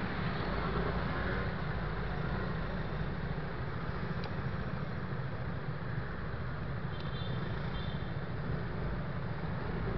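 Steady scooter engine and road noise while riding among a large pack of motor scooters, with the low rumble strongest. A few faint high ticks and a brief faint chirp come about seven seconds in.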